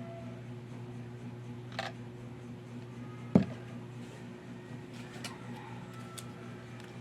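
Steady low hum, with a click near two seconds in and a single sharp knock about halfway through, then a few faint ticks.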